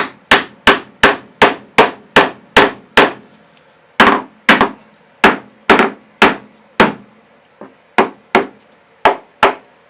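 Hammer blows knocking an epoxy-glued plywood strip into place: sharp strikes about three a second, a pause after about three seconds, then slower, uneven strikes with one lighter tap among them near the end.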